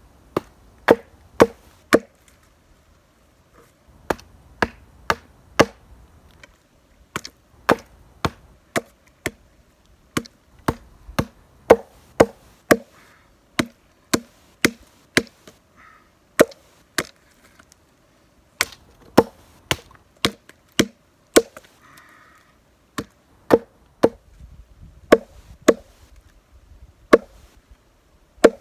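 A blade chopping into the end of a wooden stick laid against a log, carving it to a point: sharp woody strikes in irregular runs of two to five, about half a second apart, with short pauses between the runs.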